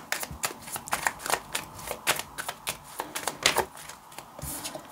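Tarot cards being shuffled by hand: a quick, irregular run of crisp card clicks and flicks that stops about three and a half seconds in.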